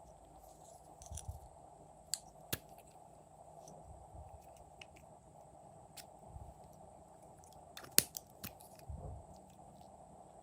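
Glossy slime being squeezed and worked by hand: soft squishes with scattered sharp clicks and pops, the loudest about eight seconds in.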